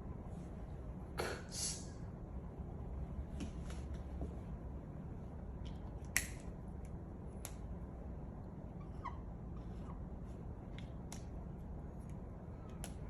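Low steady background hum with scattered small clicks and ticks, including a brief rustling sound about a second in and a sharper click about six seconds in.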